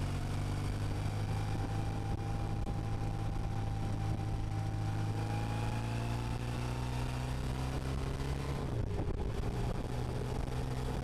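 Motorcycle engine running steadily at cruising speed, heard from the bike itself, with wind rush over it. The engine note drops briefly about nine seconds in, then runs on.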